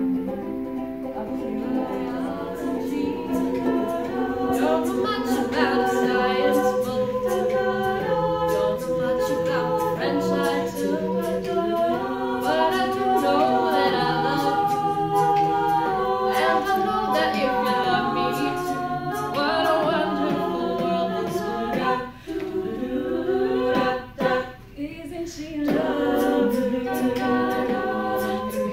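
An a cappella group singing in harmony, several voices and no instruments. The singing breaks off briefly twice about three-quarters of the way through.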